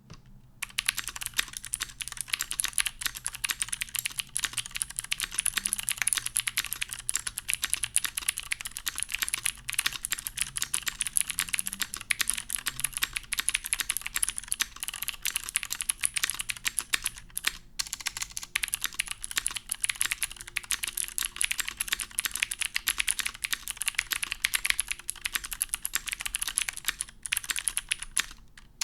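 Steady fast typing on a mechanical keyboard with clicky Cherry MX Blue switches, oil-lubed, mounted in an aluminium plate: a dense stream of sharp key clicks, with a brief pause a little past halfway.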